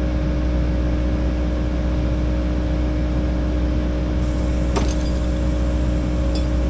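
Kubota 080 excavator's diesel engine running at a steady speed, with a sharp clink about five seconds in and a lighter one near the end.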